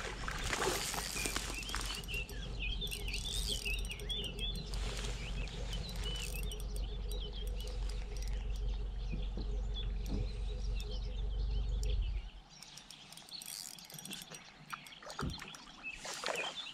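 Small birds chirping and singing over a steady low rumble that cuts off suddenly about twelve seconds in, with a few faint clicks.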